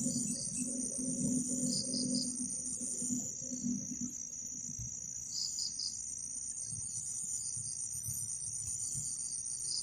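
Night insect chorus: crickets trilling steadily and high-pitched, with short chirps in groups of three repeating every few seconds.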